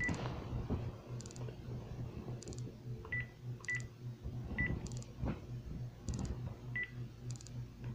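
Phone keypad beeping as a number is dialled: about five short beeps at uneven intervals, over a faint low hum.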